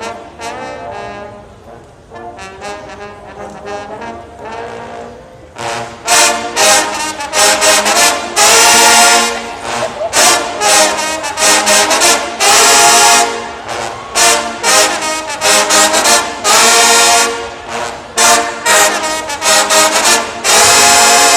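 A marching band trombone section playing together. It plays softly at first, then about six seconds in comes in loud with short punched notes broken by several long held blasts.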